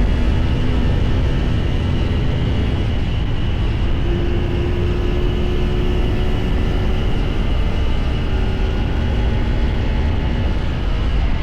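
CFMoto 450SR's parallel-twin engine running at a steady, unchanging pace under way, with heavy wind rush on the microphone.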